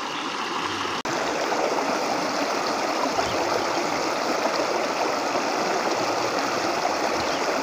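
Clear stream water rushing steadily over a shallow, rocky riffle, with a brief break about a second in.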